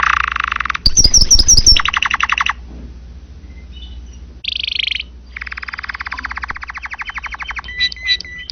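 Domestic canary singing in a loud, fast run of rolling trills and rapidly repeated notes, phrase after phrase. There is a short pause about halfway, then a long trill.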